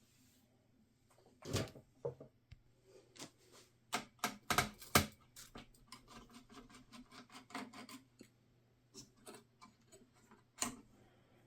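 Clicks, knocks and scraping of an HP EliteDesk 805 G6 small-form-factor desktop's case and parts being handled during disassembly. The sharpest knocks come about four to five seconds in, with softer rubbing after them.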